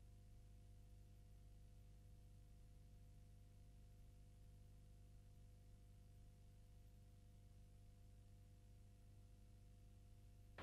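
Near silence: a faint, steady hum with no other sound.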